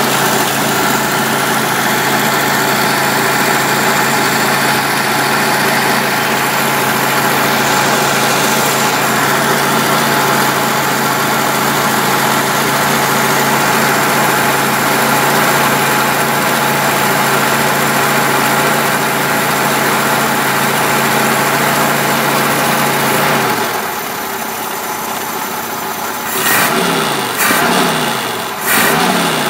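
BMW 2002's four-cylinder engine with a Weber 32/36 carburetor running cold on high idle, steady. About 24 seconds in the idle drops lower, and near the end the throttle is blipped a few times, the revs rising and falling.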